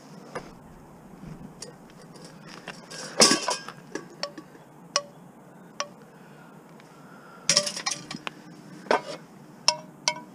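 Pieces of scrap metal clinking and clanking as they are handled and dropped onto other metal. Scattered knocks with short metallic ringing, busiest about three seconds in and again near the end.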